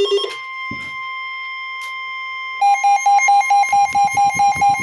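Weather radio alert: a steady warning alarm tone begins just after the start, the tone that comes before a National Weather Service warning is read. About two and a half seconds in, the radio's own alarm joins it, beeping rapidly at about four beeps a second.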